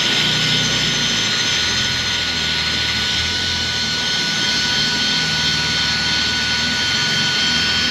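Snap-on drill spinning a polishing ball of plastic polish against a headlight lens: a steady motor whine, its lower hum shifting slightly as the drill's speed changes.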